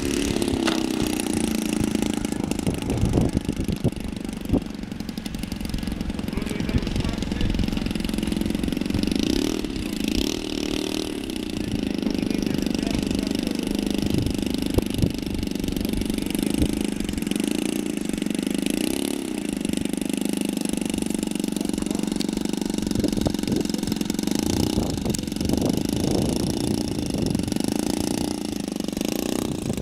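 Engine of an ESM T-28 radio-controlled model plane idling steadily as the plane taxis on the ground after landing, its pitch wavering slightly up and down a couple of times.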